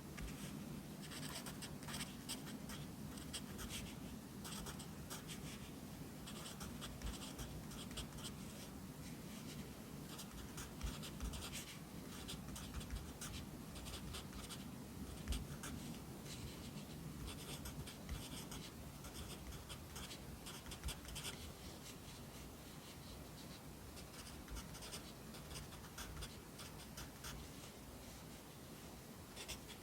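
Pencil writing Korean characters on paper by hand: quick, irregular scratching strokes with brief pauses between letters.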